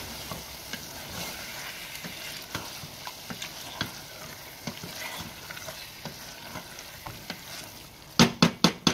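Chicken in onion-tomato masala sizzling in a stainless steel pot on high heat, the bhuna frying stage, while a wooden spatula stirs and scrapes it with small scattered taps. Near the end, a quick run of loud knocks, about five a second.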